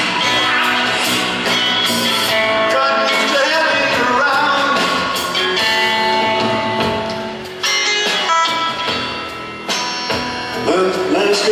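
A live band playing rock: electric guitar, upright bass and drum kit, with a man singing lead.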